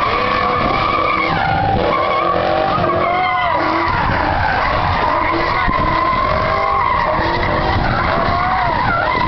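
Car doing a burnout: its rear tires spin on the pavement with a continuous screech that wavers in pitch, over the sound of the engine.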